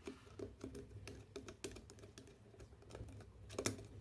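Small irregular clicks and taps of the last screw being turned in to fasten the fan motor's end cover, with one louder knock near the end.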